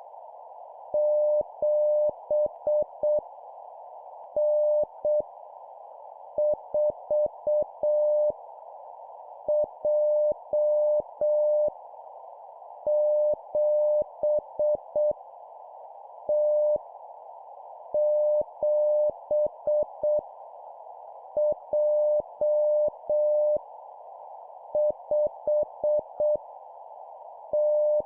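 Morse code (CW) tone at about 600 Hz sent at 7 words per minute, dits and dahs forming random single letters and numbers one at a time, with pauses of about a second between characters. A steady hiss of noise sits under the tone throughout.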